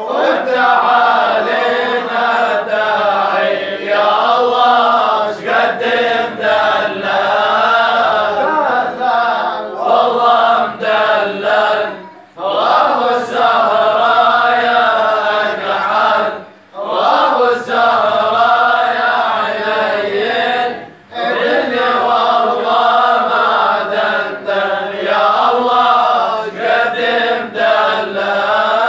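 A man singing a madih (religious praise poem) unaccompanied, in long wavering melodic phrases broken by brief pauses for breath.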